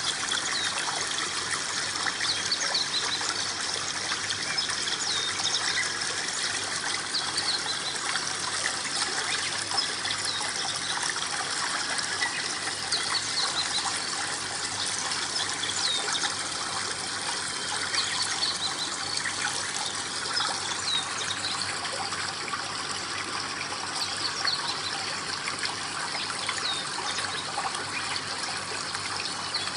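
Water trickling and splashing steadily down the small waterfall of an aquaterrarium tank, with many small drips and splashes.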